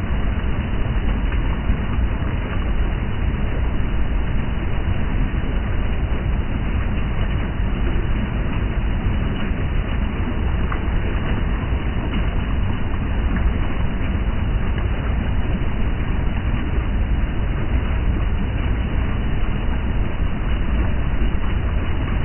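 River water running steadily, a loud, even rush with most of its weight low down.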